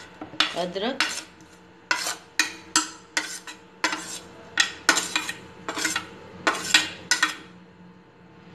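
A steel spoon scraping and knocking against a plate and a plastic mixing box as chopped ingredients are pushed in. It makes an irregular run of short scrapes and clicks, about fifteen in all.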